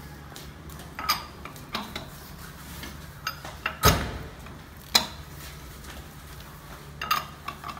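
Sharp metallic clinks and knocks, about six spread over several seconds, the loudest a heavy clunk about four seconds in, as a car wheel is lined up and fitted onto the hub studs during a tire rotation. A steady low hum runs underneath.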